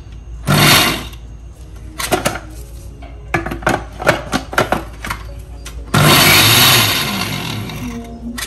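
Electric mixer grinder pulsed in short bursts to coarsely crush a grated-coconut spice mix rather than grind it fine. There is a short burst about half a second in and a longer one around six seconds in that fades away. Between them come several sharp clatters and clicks of the steel jar, lid and knob.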